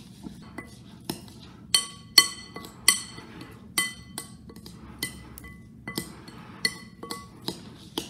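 A metal spoon stirring bird seed and gelatin mixture in a glass mixing bowl. The spoon clinks against the glass irregularly, about one or two times a second, each clink ringing briefly; the loudest clinks come about two to three seconds in. Faint gritty scraping of the seed runs between the clinks.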